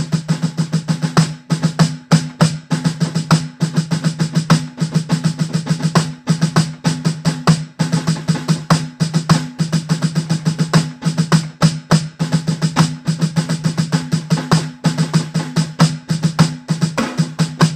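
Snare drum played on an electronic drum kit's mesh snare pad: a fast, continuous rudimental snare solo passage, loud, with regularly accented strokes standing out from the unaccented notes.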